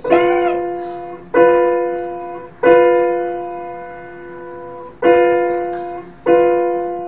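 Upright piano played by a young child: the same note struck five times at a slow, uneven pace, each one let ring and fade, the third held about twice as long as the others.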